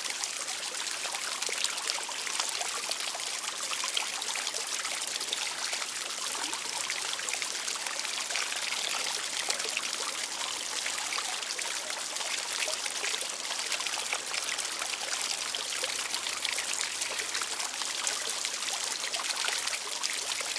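Small outdoor water fountain splashing and trickling steadily, a continuous hiss of falling water with fine droplet splashes.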